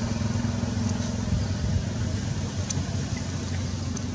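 A vehicle engine running with a low, steady drone that slowly fades, with a few faint high ticks.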